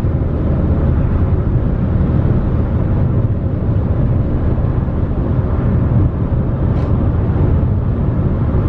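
Steady road and engine rumble inside the cabin of a moving car, heaviest in the low range. A faint short tick sounds about seven seconds in.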